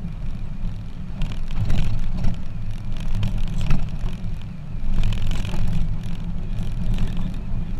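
Pickup truck driving on a bumpy dirt road, heard from its open cargo bed: a steady low rumble with irregular knocks and rattles.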